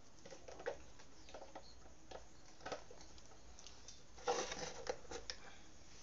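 Handling noise as a table fan's power cord and plug are handled for plugging in: scattered light clicks and rustles, then a louder cluster of scraping clicks about four seconds in.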